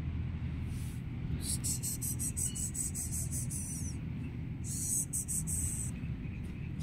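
Steady low background rumble. Over it come two runs of rapid high-pitched ticking pulses, about six a second, lasting roughly two seconds and then about one second.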